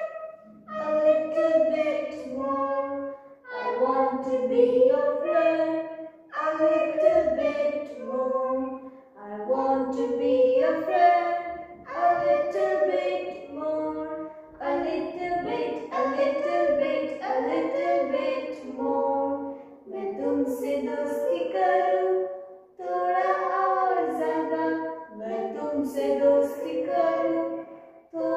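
Unaccompanied singing, in phrases of two or three seconds with short breaks between them.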